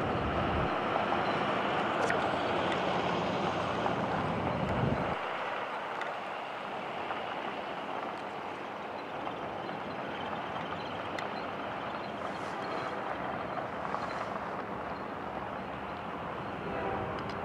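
Steady rumble of an approaching Union Pacific double-stack freight train's diesel locomotive. Wind buffets the microphone for the first five seconds or so, then stops suddenly. The locomotive's horn starts sounding near the end.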